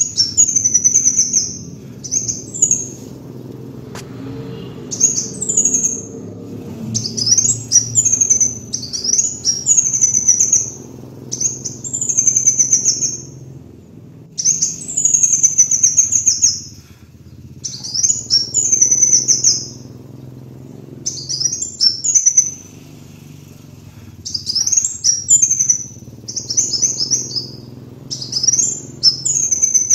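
Kolibri wulung sunbird singing: a run of high-pitched twittering phrases, each a second or two long with short pauses between, repeated over and over above a faint low hum.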